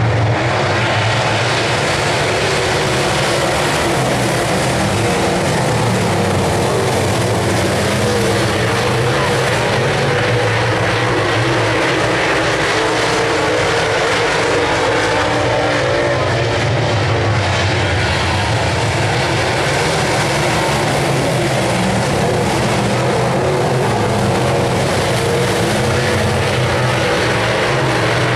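A pack of dirt late model race cars running laps together, their V8 engines making a loud, steady drone that rises and falls slightly as the cars pass.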